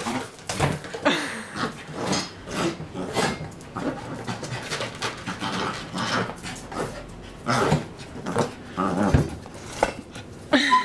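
Jack Russell–cairn terrier mix puppy panting hard in quick, irregular bursts, with short growling noises, as it wrestles a basketball.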